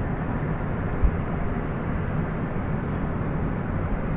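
Steady, loud, turbine-like drone of an oil refinery heard across the neighbourhood: an even, deep rumbling noise with no break. There is a brief low thump about a second in.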